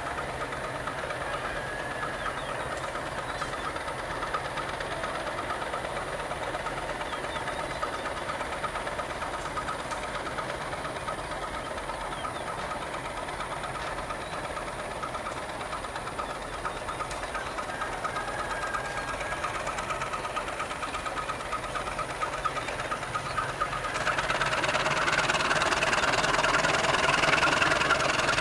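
CC 202 diesel-electric locomotive running as it hauls wagons slowly along the track, its engine giving a steady, even beat. About 24 seconds in the engine throttles up and grows louder.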